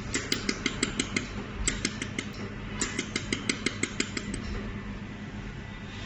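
Pulsed jewellery laser welder firing in three quick runs of sharp ticks, about six or seven pulses a second, one crisp snap per laser pulse, over the steady hum of the machine's cooling.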